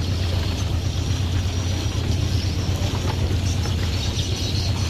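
A boat engine idling, a steady low drone.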